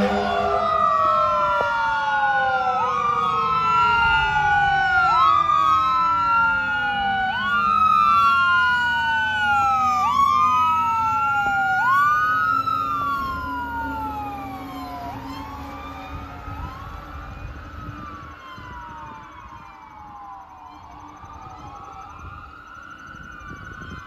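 Fire engine's siren wailing, sweeping up and down about once every two seconds. A second, lower siren tone slides slowly down and dies away over the first several seconds. The siren fades steadily after about thirteen seconds as the engine drives off.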